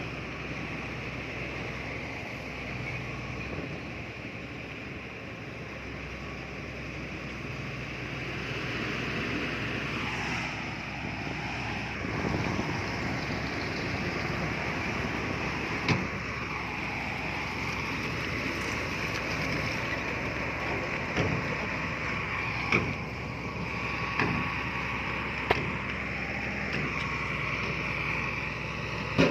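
Heavy diesel earthmoving machinery running steadily, its engine pitch wavering up and down, with about six sharp clanks in the second half.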